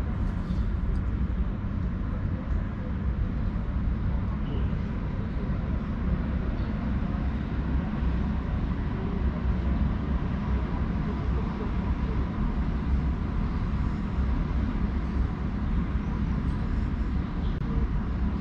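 Steady low rumble of distant city road traffic, with no distinct events standing out.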